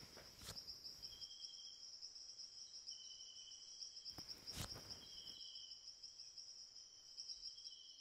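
Near silence with a faint, steady, high-pitched chirring and a few soft short chirps under it, and one soft click about four and a half seconds in.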